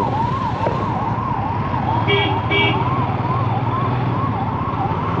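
Emergency vehicle siren giving a steady rising-and-falling wail, a little under twice a second, over a low engine hum. Two short horn beeps come about two seconds in.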